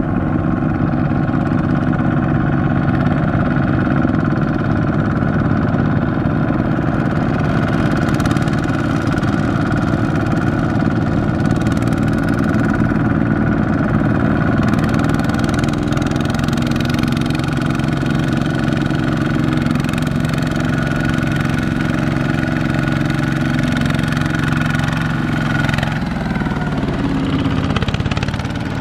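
Diesel engines of two-wheel walking tractors (hand tractors) running steadily as they pull loaded trailers through a flooded, muddy paddy.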